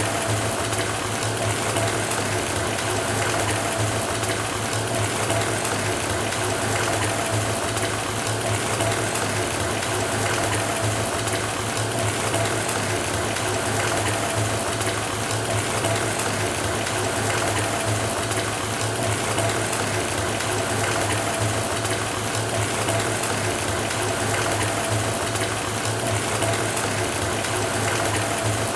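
Bath tap running into a filling bathtub: a steady rush and splash of water, with a low hum underneath.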